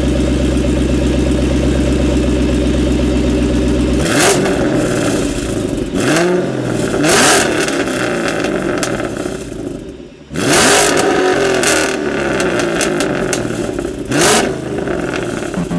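Muscle-car engines running at a steady idle, then revved hard in several short bursts, the pitch climbing and falling back with each blip.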